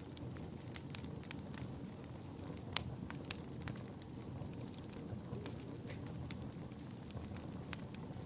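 Wood fire burning in a fireplace: a steady low rumble of flames with scattered sharp crackles and pops, the loudest pop about three seconds in.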